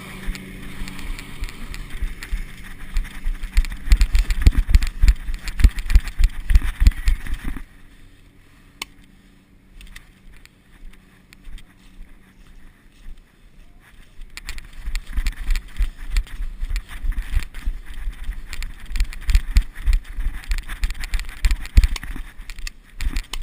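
Dense, irregular low thumping and rustling in two long stretches, with a quieter gap of about six seconds in the middle. It is the knocking and handling noise of a carried GoPro camera as its wearer moves about.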